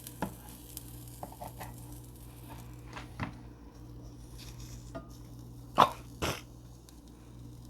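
A few short knocks and clinks of a utensil against a pan and bowl as cooked onions and mushrooms are scooped out. The loudest knock comes about six seconds in, over a steady low hum.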